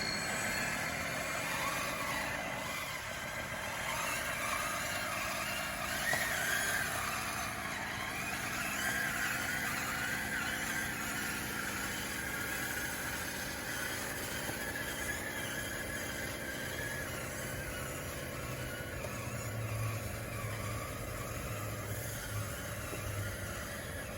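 Radio-controlled DXR2 bulldozer working, its small drive motors and gears giving a steady whine that wavers a little in pitch, with a squeak from the running gear.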